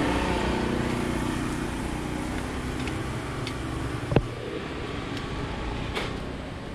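A motor vehicle's engine running steady and fading away over the first few seconds. There is a sharp tap about four seconds in and a lighter one near six seconds.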